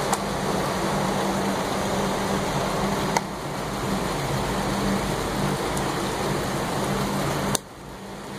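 A few sharp plastic clicks as a battery is fitted into the back of a Z-96K LED video light: one at the start, one about three seconds in, and one near the end. Under them is a steady low hum and hiss, which cuts out suddenly at the last click.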